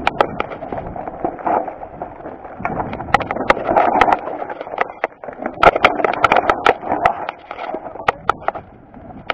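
Mountain bike clattering down a rough, rocky trail: irregular sharp knocks and rattles of tyres, chain and frame over stones, over a steady rush of rolling noise.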